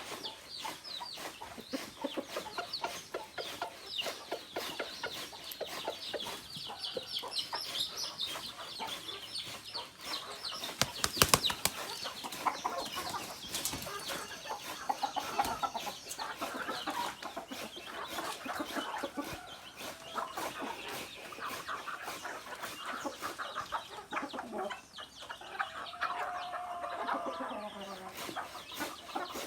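A flock of native chickens clucking and calling, with many short clucks throughout and longer, louder calls in the second half. A brief cluster of sharp knocks comes about eleven seconds in.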